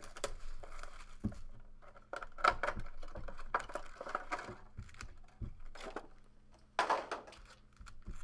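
Plastic wrap being slit with a box cutter and torn off a sealed trading-card box, crinkling, with knocks as the box is handled and one louder rip near the end.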